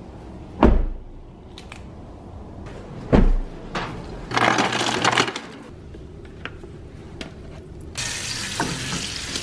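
Two heavy thumps about half a second and three seconds in. Then a refrigerator door dispenser drops ice into a paper cup with a brief clattering rush, and near the end it runs a steady hissing stream of water into the cup.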